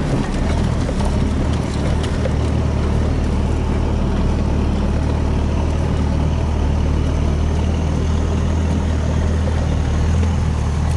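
Four-wheel-drive pickup's engine running steadily at low speed while the truck wades through deep creek water, heard from inside the cab, with water washing along the side of the truck.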